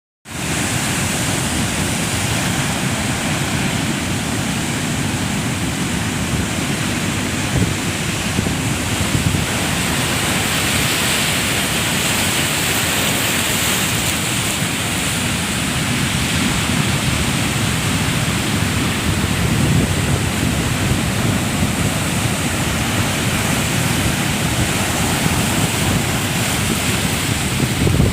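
Ocean surf washing steadily, a continuous hiss of breaking waves, with wind buffeting the microphone in low rumbling gusts.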